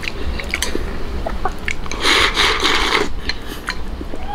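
Close-miked eating: chopsticks clicking against a glass bowl while sauce-soaked rice is shovelled into the mouth, with a louder, noisier stretch of eating about two seconds in that lasts about a second.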